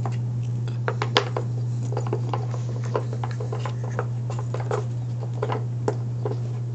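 Sliding pieces of a Nina Ottosson Dog Fighter puzzle toy being nudged and knocked by a dog: irregular light clicks and scrapes, the sharpest about a second in, over a steady low hum.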